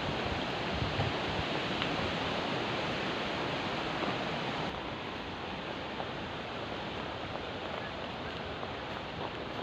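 Water rushing steadily along a channel. About halfway through it drops a little in level and loses some of its hiss.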